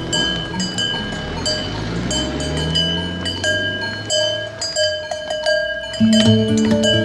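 Background music of plucked, bell-like notes, with a cow's low, drawn-out moo rising in pitch under it about a second in.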